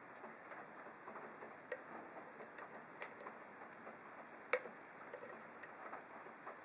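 Faint, irregular metallic ticks and clicks of a hook pick working the pins of an ASSA SCD 7-pin oval lock cylinder under tension, with one sharper click about four and a half seconds in.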